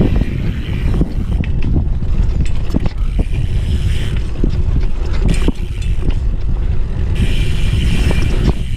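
Heavy wind rumble on the microphone over a dirt jump bike riding on dirt, with scattered clicks and knocks from the bike and a higher hiss that comes and goes several times.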